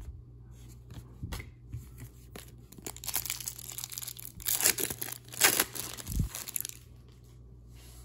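A Beehive hockey card pack wrapper being torn open and crinkled by hand, in rustling bursts from about three seconds in, loudest in the middle, with a dull bump near the end.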